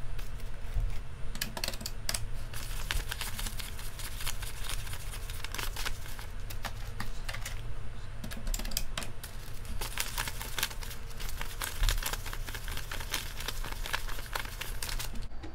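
Stack of US paper banknotes being flicked through and counted by hand, a fast, irregular run of crisp paper clicks and rustles, played sped up.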